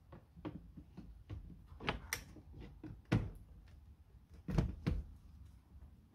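Plastic glovebox compartment being worked into place in a car dashboard: a string of plastic knocks, clicks and rubs, the loudest a sharp knock about three seconds in and two more thuds between four and a half and five seconds.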